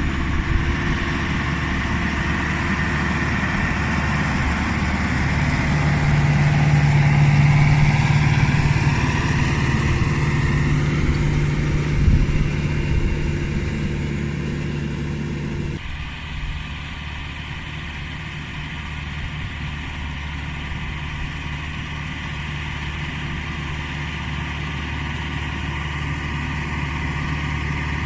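Case CX80 tractor's diesel engine running steadily with a low drone and a faint whine that rises in pitch in the first half. The sound changes abruptly a little past halfway and then runs on steadily.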